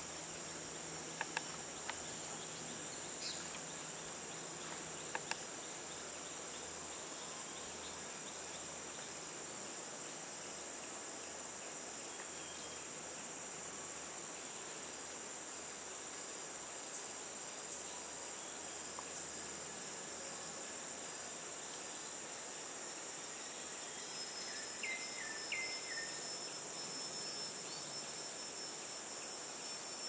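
Steady high-pitched drone of forest insects. There are a few sharp clicks in the first five seconds and a few short chirps near the end.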